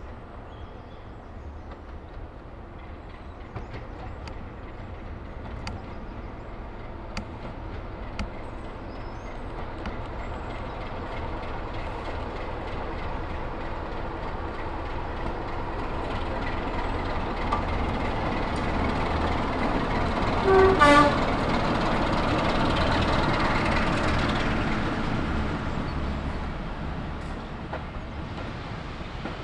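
BR Class 45 'Peak' diesel locomotive No. 45108 running under power as it approaches, its Sulzer twin-bank twelve-cylinder engine growing steadily louder. About two-thirds of the way through it gives a short horn blast, the loudest moment, and the sound then fades as the coaches roll past.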